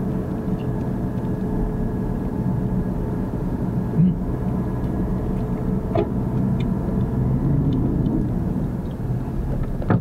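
A vehicle engine running steadily on the move, with a low hum and road noise, and a few brief knocks about four and six seconds in.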